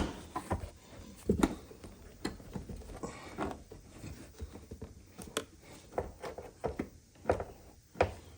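Screwdriver prying at a hatch lock cylinder held in by glue: irregular metallic clicks, taps and scrapes, a few sharper knocks among them.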